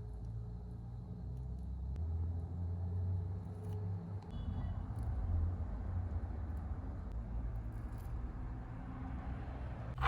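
A car engine running with a steady low rumble, its pitch shifting about two seconds in and again near the middle.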